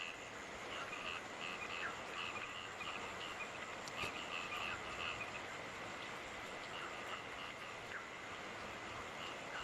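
Frogs calling in runs of short, quick croaks over a steady hiss of night rain, with a faint constant insect trill behind.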